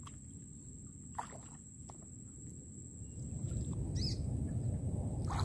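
Quiet outdoor ambience on open water: a low rumble that swells about three seconds in, a thin steady high whine, and a faint chirp near the four-second mark.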